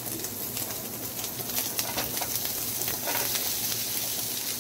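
Breakfast sausage pieces sizzling in a hot nonstick frying pan, a steady hiss with scattered small crackles.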